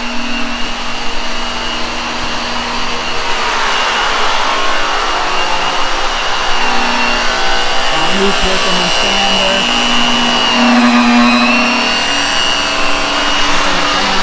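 Handheld electric polishing tools working the aluminum body of a dump truck. There is a loud, steady high whine over a dense machine hiss, and its pitch sags briefly about three-quarters of the way through as the tool is loaded against the metal.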